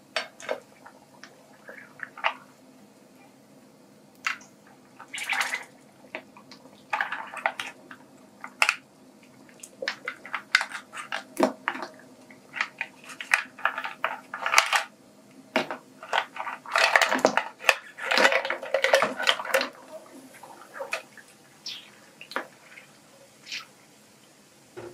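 Live land snails dropped one at a time from a ceramic bowl into a pan of boiling soup: shells clicking and knocking against the bowl and pan, with splashes in the hot liquid. The handling comes in scattered clicks, busiest in stretches around a quarter and three quarters of the way through.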